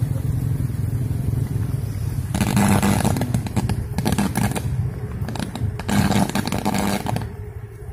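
Overhead electrical cable shorting out in the rain: two bouts of loud, crackling, buzzing arcing. The first starts about two seconds in and lasts about two seconds; the second comes near the end and lasts about a second. A steady low vehicle rumble runs underneath.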